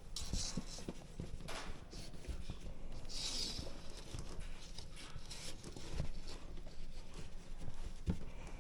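Irregular light knocks and taps, with a few brief scraping and rustling sounds, from parts being handled and fitted by hand.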